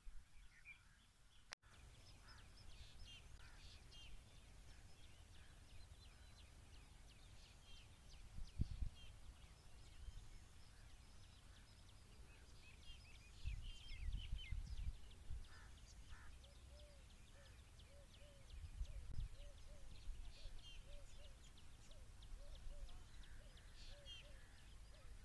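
Faint outdoor ambience of scattered small-bird chirps, with low gusts of wind rumbling on the microphone. From about two-thirds of the way through, a lower bird call repeats steadily.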